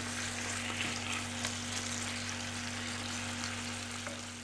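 Diced chicken pieces, seasoned with pepper and turmeric, sizzling steadily as they fry in hot oil in a non-stick pan, fading a little near the end.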